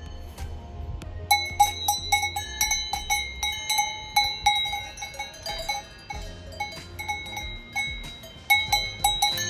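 Cattle bell clanking irregularly, several strokes a second, each stroke ringing on at the same pitch. It starts about a second in and continues over a faint low wind rumble.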